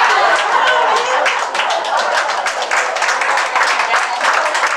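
Small audience applauding, many hands clapping; the clapping thickens into steady applause about a second in.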